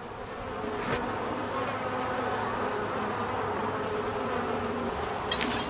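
Honey bees buzzing in numbers around an open hive during an inspection: a steady drone that builds over the first second and then holds. A few sharp clicks come near the end.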